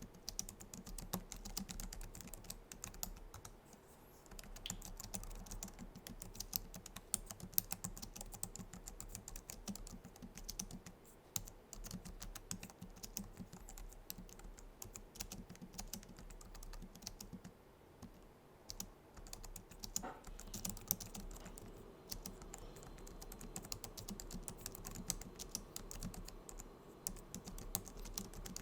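Typing on a Logitech MX Keys low-profile scissor-switch keyboard: a steady stream of soft key clicks, with a couple of brief pauses.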